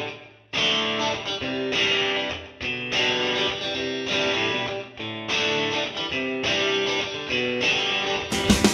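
Intro music led by guitar, played as a series of plucked phrases; a fuller, louder section with drums comes in near the end.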